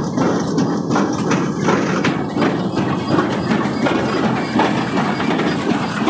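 Massey Ferguson 1840 small square baler running while it picks up and bales straw. It makes a steady, dense mechanical clatter with irregular knocks, over the pulling tractor's engine.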